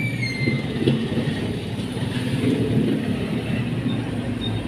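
Low, steady rumble of a motor vehicle's engine running, with a high tone that slides down and fades in the first half second.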